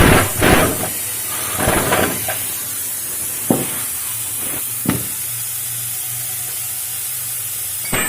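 Socket wrench work on the front axle nut of an old Royal Enfield. A quick run of clicks and knocks comes at the start, then separate sharp clicks every second or so over a steady hiss.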